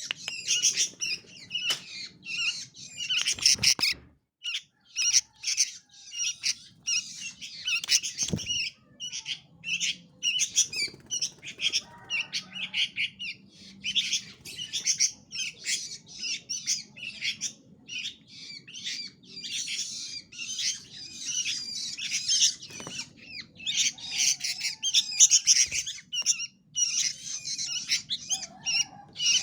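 Small songbirds calling rapidly and almost without pause, in harsh, high chattering squawks.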